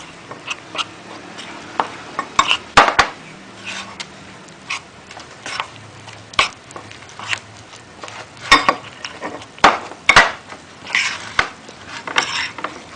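A metal spoon scraping and clinking irregularly against a bowl as it stirs glutinous rice flour and rice flour with water into a paste.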